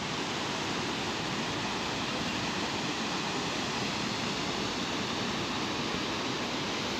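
Steady, even rushing noise with no distinct events or pitched sounds in it.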